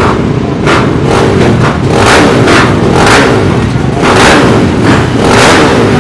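Many motocross bikes running together, their riders blipping the throttles in quick, overlapping revs over a steady engine drone.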